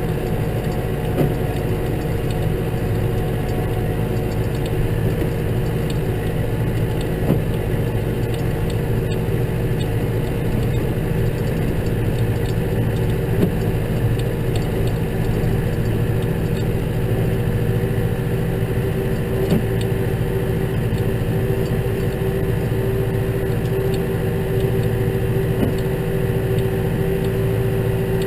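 Case tractor engine running steadily with an even, unchanging drone, with a few faint knocks every several seconds.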